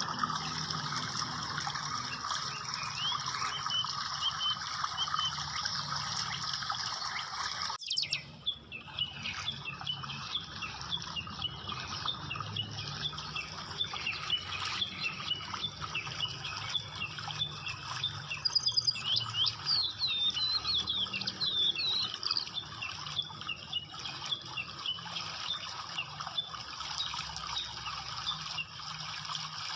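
A steady rushing hiss with a few high chirps, cut off abruptly about 8 seconds in. After the cut, small birds chirp rapidly and densely over a softer background hiss.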